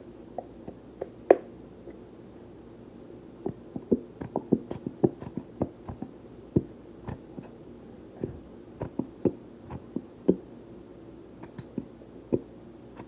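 Irregular light taps and clicks of a glue bottle and mixing cup being handled while making slime, with one sharper click about a second in and a busier run of taps in the middle.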